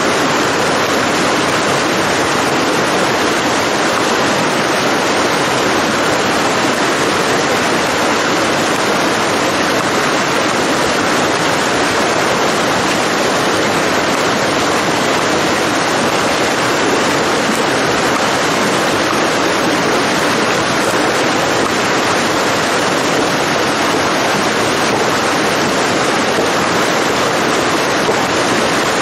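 Shallow stream rushing and splashing over rocks close by, a steady, loud wash of water that does not change.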